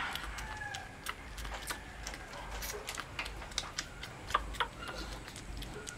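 A 25-day-old Shih Tzu puppy eating raw meat from fingers: irregular wet smacking and clicking of its mouth, several a second, with two louder smacks a little past four seconds in.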